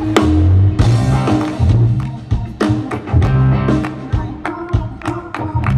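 A live band playing a short passage of a song in a soundcheck run-through: a bass line changing notes under sharp drum hits and held keyboard chords.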